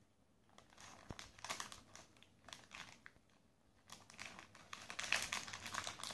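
Plastic toy blind-bag packet crinkling and rustling as a child's hands squeeze, twist and work it open. The rustling comes in short bursts at first, then runs more continuously in the second half.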